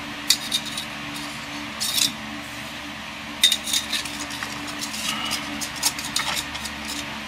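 Scattered light metallic clinks and taps of an aluminium ruler and a steel knife blade being handled and laid against each other, over a steady low hum.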